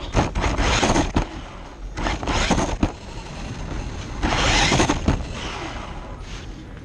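Onboard sound of a Traxxas 1/16 Mini E-Revo RC truck driving on asphalt. There are three surges of motor, tyre and wind noise, about a second each, with sharp knocks from the chassis between them.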